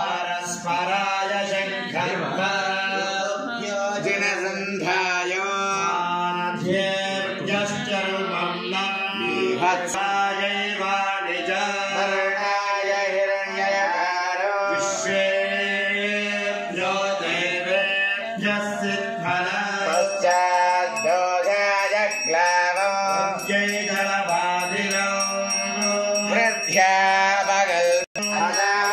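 Male voices chanting Sanskrit Vedic mantras in a continuous recitation during an abhishekam, with a steady low drone beneath. The chanting cuts out briefly near the end.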